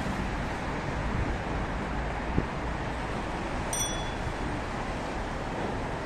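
Steady road traffic noise from a busy city street. There is a short knock a little after two seconds and a brief high ding at about three and a half seconds.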